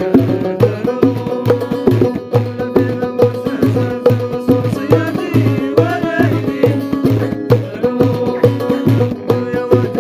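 Folk ensemble playing: banjo and long-necked lute plucked over a steady drum beat from a jingled frame drum and hand-clapping, with men singing along.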